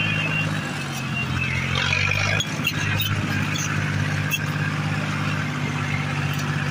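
Tractor diesel engine running under load as it drags a leveller blade through soft soil, heard from on board; its note shifts about half a second in and again a little after two seconds. A few faint metallic clinks come through in the middle.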